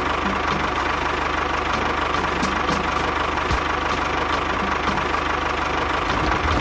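A small motor running steadily, with a fast low pulsing and a light ticking about three to four times a second.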